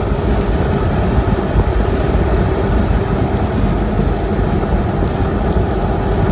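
Steady road and engine noise inside a moving car's cabin, a low rumble with a faint steady hum.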